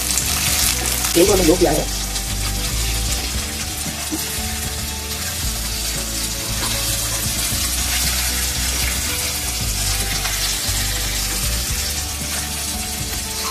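Chopped onions and ginger garlic paste sizzling steadily in hot oil in a frying pan, stirred and pushed around with a slotted spatula. The paste is being fried in the browned onions.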